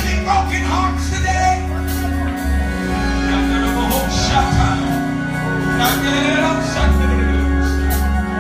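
Live worship music in church: held keyboard chords over a deep sustained bass, with voices singing and calling out in praise over them.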